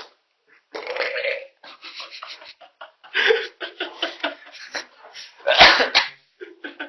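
Mouth-made sound effects: a person's voice making a string of short, choppy, noisy bursts and burp-like sounds, the loudest about two-thirds of the way through.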